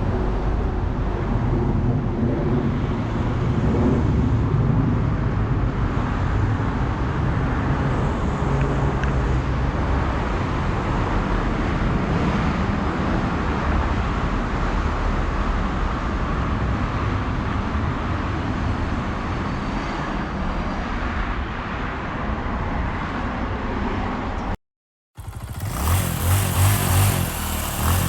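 A motor vehicle running on the road, a steady engine and road sound. It drops out briefly near the end, then comes back louder, the engine note rising and falling.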